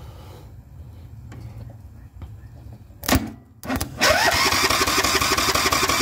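Pliers bridged across the two terminals of a riding mower's starter solenoid: a sharp snap about three seconds in as they make contact, then the electric starter whines up and cranks the small engine over at a steady rhythm for about two seconds without it firing, because the engine has no fuel in it.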